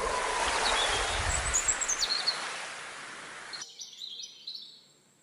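Small birds chirping and whistling over a steady rushing noise. The rushing cuts off abruptly a little over three and a half seconds in, and the fainter chirps that remain fade away.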